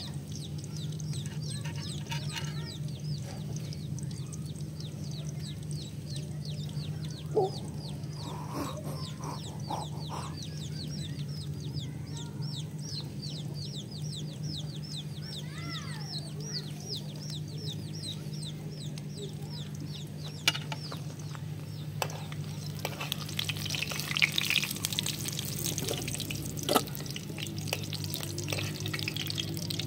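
Chickens clucking nearby over a steady low hum, with a fast run of high, short chirps from a small bird in the first part. Later, slices of eggplant frying in oil in a pan over a wood fire sizzle as they are turned with a metal utensil, with a few sharp clicks.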